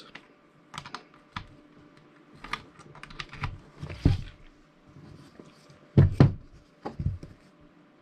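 Scattered plastic clicks and knocks as a USB charging cable is handled and plugged into the USB port of an RGB power strip tower, with louder thumps about four and six seconds in.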